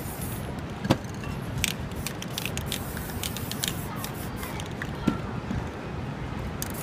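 Aerosol spray-paint can hissing in several short bursts, with a sharp click about a second in, over steady street noise.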